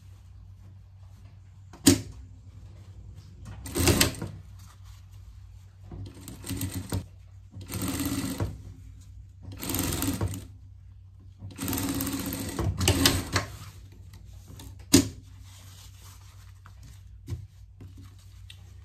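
Industrial straight-stitch sewing machine stitching fabric in about five short runs of one to two seconds each, with a steady motor hum in between. There is a sharp click about two seconds in and another near the end.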